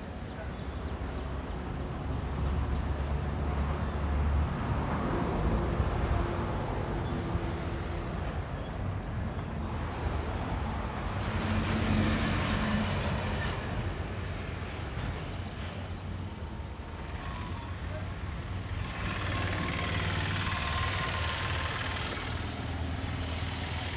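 Road traffic: engine and tyre noise of vehicles passing on a road, swelling and fading a few times over a steady low rumble.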